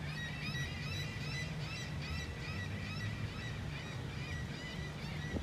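A flock of gulls calling: many short, overlapping cries over a steady low rumble.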